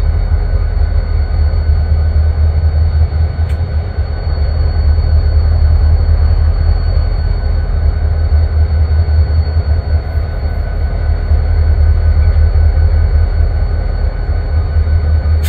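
EMD GP40-2 diesel-electric locomotives running, a loud steady low rumble with a thin, steady high whine over it.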